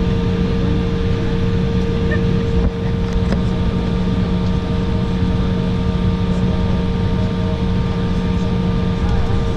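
Steady cabin noise inside an Embraer 195 on the ground: its GE CF34 turbofans at idle and the cabin air system make a constant hum with a few fixed tones.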